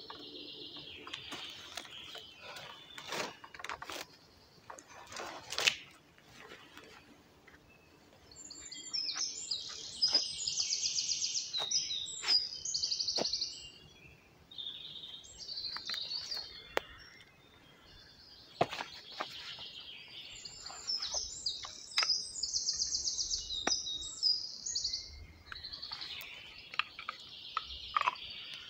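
A songbird singing two long, high-pitched phrases of rapid trills and chirps, one starting about a third of the way in and the other about two-thirds in. Scattered sharp clicks, knocks and rustles of a wooden branch and twine being handled sound throughout, the loudest a single sharp knock early on.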